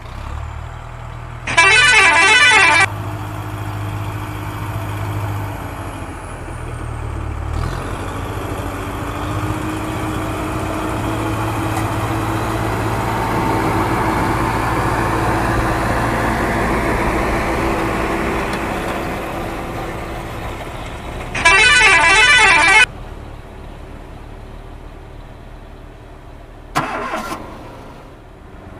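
A vehicle engine running and swelling louder through the middle, broken by two loud horn honks: one about a second and a half in, the other about twenty seconds later. A short sharp sound comes near the end.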